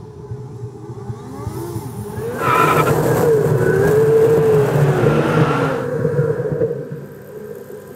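Car driving with engine and road noise, heard from a camera mounted on the car's roof. About two and a half seconds in the engine grows much louder under acceleration, its pitch dipping and then climbing. It falls back to a quieter steady cruise near the end.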